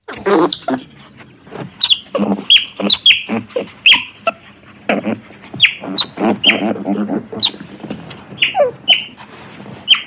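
Parrots squawking: many short, sharp calls that fall in pitch, with lower chattering calls between them. The calls start abruptly.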